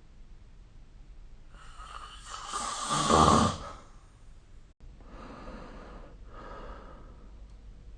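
A sleeping person snoring: one loud snore builds up from about one and a half seconds in, peaks, and stops about four seconds in. Softer breaths follow.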